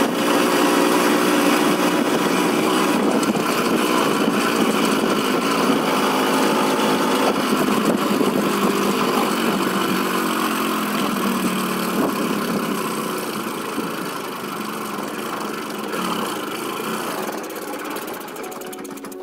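Sachs Komet 50cc moped's single-cylinder two-stroke engine running under way, then the engine note drops and fades as the moped slows almost to a stop near the end.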